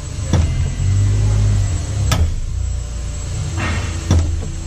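Three sharp metal clunks about two seconds apart from a Kubota RTV-X1140 cab door and its latches as the door is shut and tested, over a steady low hum.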